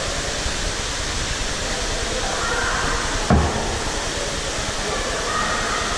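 Indoor swimming-pool hall ambience: a steady wash of splashing and running water mixed with distant bathers' voices. A single dull thump sounds about three seconds in.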